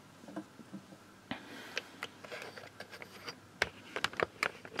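Scattered light clicks and knocks from a steel moped centre stand being handled and set down on a wooden workbench, sparse at first and coming more often near the end.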